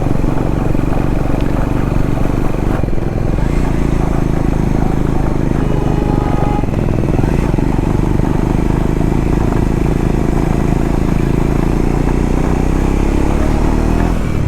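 Triumph Scrambler 400X's single-cylinder engine running steadily as the motorcycle rides along.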